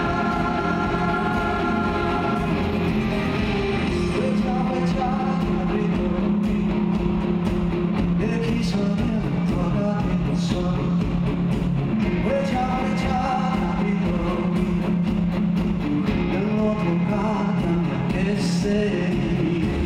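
Live rock performance: two male singers singing over acoustic and electric guitars and a full band.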